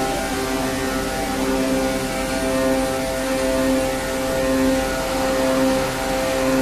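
Plastic injection moulding machine running with a steady machine hum and a pitched whine. The lower tone swells and eases about once a second.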